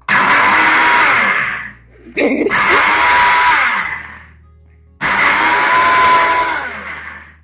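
WMF Kult Pro high-speed mixer grinder motor running in three bursts of about two seconds each, each starting abruptly and dying away, as it grinds soaked rice with water into dosa and idli batter.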